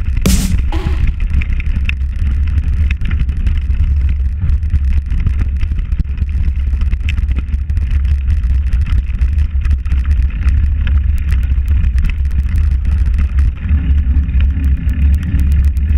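Wind buffeting an action camera's microphone on a mountain bike ridden at speed, a steady heavy low rumble, with scattered clicks and rattles from the bike over the rough dirt track.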